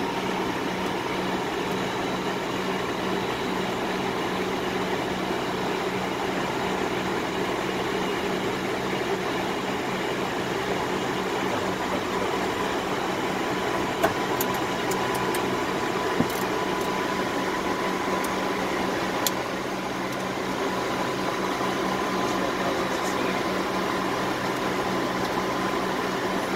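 Steady flight-deck noise of a McDonnell Douglas DC-9-14 in its climb after takeoff: a constant rush of air and air-conditioning hiss over a low, even engine hum with a faint steady whine. A few sharp clicks come about halfway through.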